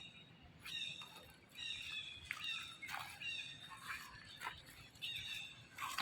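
A monkey giving a series of high-pitched squealing calls, about five in a row, each falling slightly in pitch, with a few sharp clicks between them.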